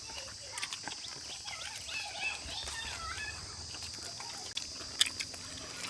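Rural outdoor ambience: a steady high insect drone, with a warbling animal or bird call from about two seconds in and scattered clicks and taps of handling.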